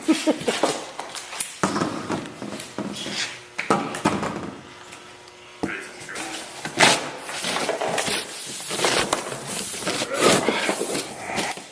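Cardboard shipping box being pulled open and handled: irregular scraping and rustling with several sharp knocks.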